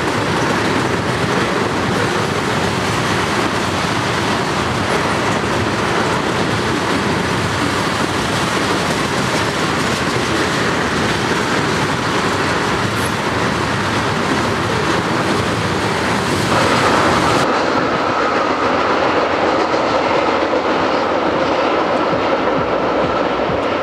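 Freight train of tank cars running past on the rails, a steady loud rush of wheels on track. In the last several seconds a steady high-pitched tone rides over the wheel noise.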